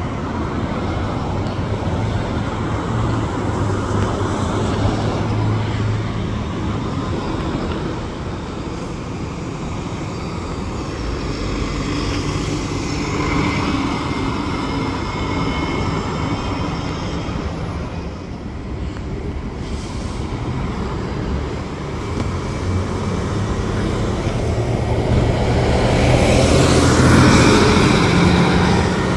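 City buses and street traffic running and passing, with a steady low engine hum and a louder vehicle pass swelling up a couple of seconds before the end.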